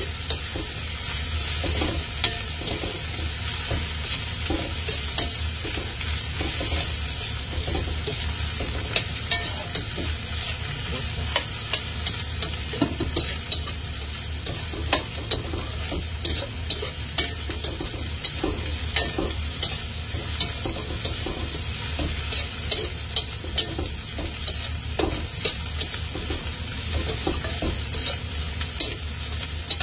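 Fried rice sizzling in a stainless steel wok while a spatula stirs and scrapes it. Irregular sharp taps and scrapes of the spatula against the pan sound over a steady frying hiss.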